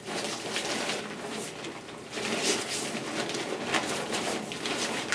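Avalanche airbag fabric rustling and crinkling as it is handled, folded and rolled up by hand, in a run of irregular rustles.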